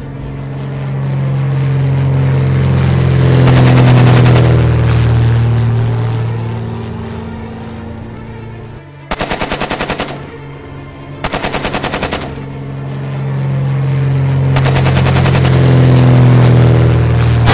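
Sound effects of a propeller fighter plane's piston engine droning as it flies past, swelling up and fading away twice. In between come two bursts of rapid machine-gun fire, each about a second long.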